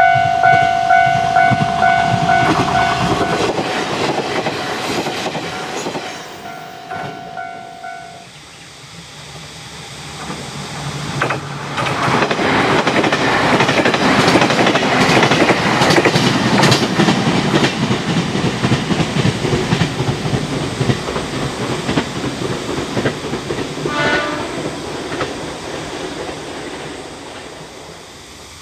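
Japanese level-crossing alarm ringing in quick repeated dings, which stops about eight seconds in. A train then passes, its wheels clattering over the rail joints, loudest around the middle and fading near the end. A brief pulsing tone comes about three-quarters of the way through.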